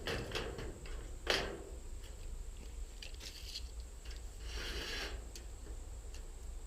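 Handling of a long piece of thin sheet-metal fascia trim on sawhorses: a sharp knock about a second in, then a couple of short scrapes and light clicks as it is positioned for marking.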